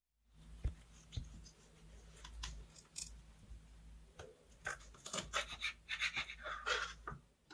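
A kitchen knife cutting a raw sardine into a butterfly fillet on a wooden cutting board: scraping cuts through the fish, with a few sharp ticks of the blade on the board. The cutting comes thicker in the second half.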